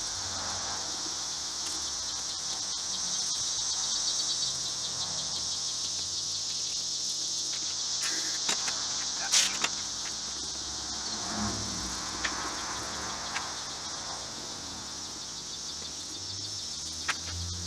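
Steady high insect chorus, with a few sharp clicks and taps scattered through it.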